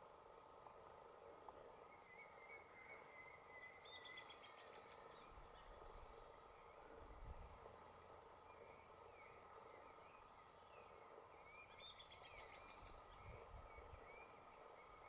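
A small tyrant flycatcher calls twice, about 4 seconds in and again near 12 seconds, each time a quick, high run of eight or so even notes lasting about a second. Faint short chirps of other birds come and go against a quiet rural background.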